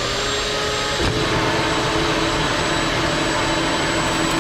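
Vacuum cleaner running steadily: a loud rush of air with a motor whine whose pitch steps down slightly about a second in.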